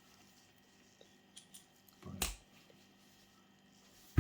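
Small metal tool clicks as a 1/4-inch drive socket and extension are handled and fitted together: a few faint ticks, a louder knock about two seconds in, and a sharp click at the very end.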